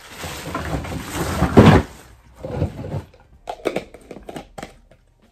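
Thin plastic packing bag crinkling and rustling as it is pulled out of a cardboard box, loudest about a second and a half in. Later come a few short sharp clicks of a white plastic lid being put on a clear plastic 12-ounce jar.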